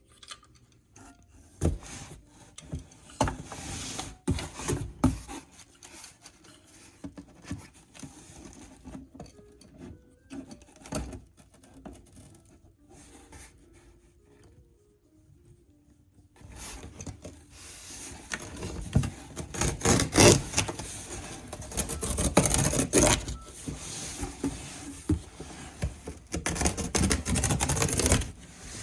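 Packing materials and a box handled by hand: scattered knocks and rubbing at first, then from about halfway a continuous, louder rustling and scraping.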